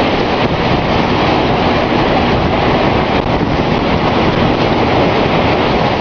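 Strong tornado winds: a loud, steady roar, with wind buffeting the microphone.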